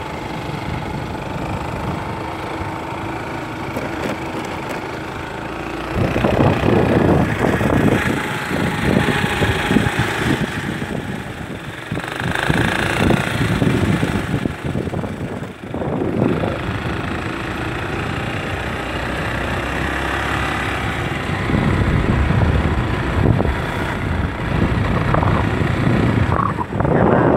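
Motorcycle engine running: a steady hum at first, turning louder and rougher about six seconds in.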